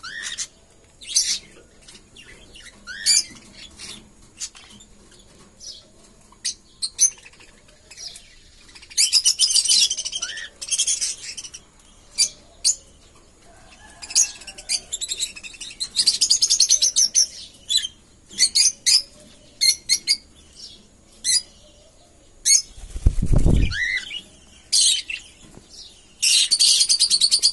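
Small cage parrots, red-rumped parrots and cockatiels, chirping and chattering in many short, high calls with denser bursts of chatter every few seconds. A brief low rumble, the loudest low sound, comes about four seconds before the end.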